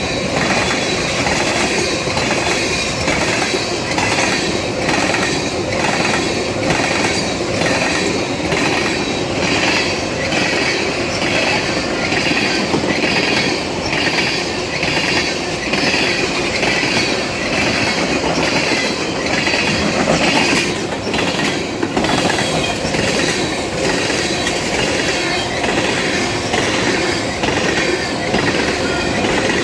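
Freight train of tank cars rolling past close by: steady wheel noise with rhythmic clickety-clack over the rail joints, about one beat a second, and a faint wheel squeal.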